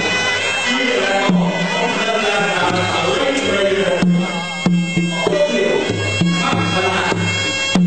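Traditional Khmer boxing music: a sralai reed pipe plays a wavering, nasal melody over repeated drum beats.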